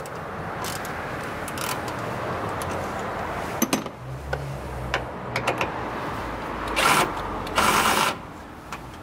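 Cordless drill backing out an air-box bolt that has already been broken loose by hand, running in two short bursts near the end, with clicks of tool handling before them.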